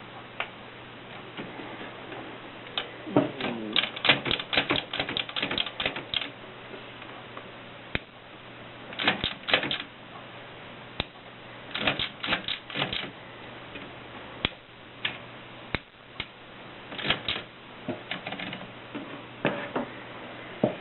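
Vintage Voss manual typewriter being typed on. Its keys strike in quick runs of a dozen or so clicks, with single keystrokes and pauses between the runs.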